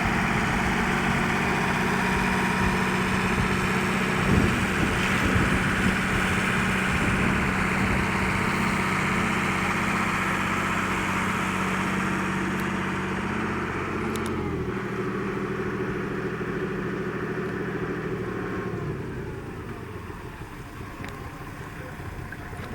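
Vehicle engine running steadily, dropping to a lower pitch about fourteen seconds in and getting quieter near the end.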